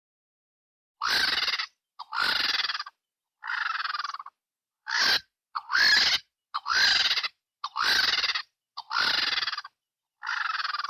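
White-backed vulture calls: about nine harsh, hoarse squealing calls, each lasting up to a second, separated by short silent gaps.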